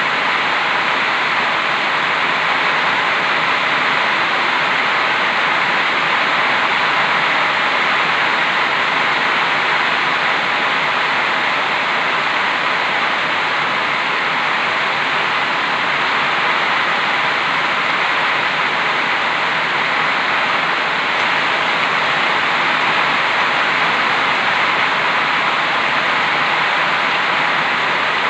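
Heavy rain pouring down steadily, a dense even hiss with no letup.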